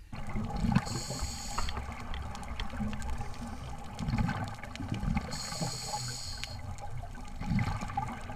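Scuba divers breathing underwater, heard muffled through a camera housing: gurgling and rumbling of exhaled bubbles, with scattered small clicks. A regulator gives two hissing inhalations, about one second in and again about five seconds in.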